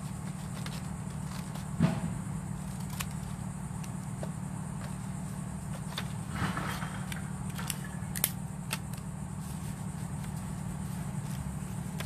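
Sheet of paper rustling and crinkling as it is folded and wrapped around a cardboard toilet-paper roll, with a few sharp clicks, the loudest about two seconds in. A steady low hum runs underneath.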